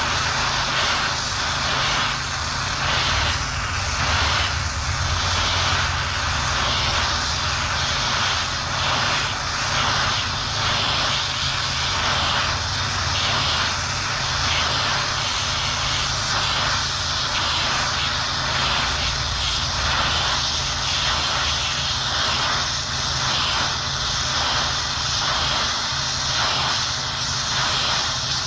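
Multiplaz 3500 water-vapour plasma torch burning with a steady hiss and a low hum underneath, while a brass rod is fed into a crack in cast iron for braze welding.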